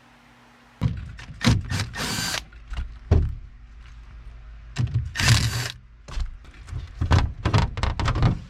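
Knocks, clicks and clatter of tools and sheet metal as the access panel of a heat pump air handler is worked open, with two longer noisy bursts of about half a second each.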